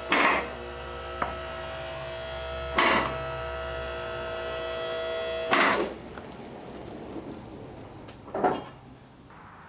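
Two-post car lift's electric hydraulic pump motor running steadily for about five and a half seconds while it raises the car, with a clatter as it starts, another about three seconds in, and a louder one as it stops. A single knock follows about three seconds later.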